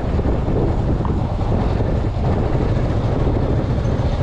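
Bajaj Avenger 220 motorcycle running on the road, its engine rumble mixed with wind rushing over the microphone, steady throughout.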